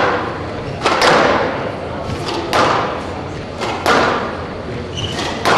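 Squash ball being struck by racquets and hitting the court walls during a rally: sharp, echoing cracks about every second and a half.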